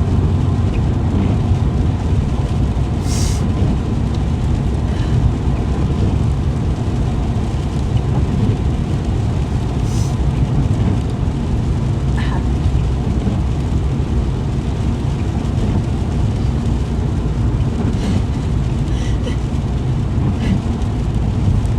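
Steady low rumble of a car's engine and tyres heard from inside the cabin while driving in the rain, with a few short hissing sounds scattered through it.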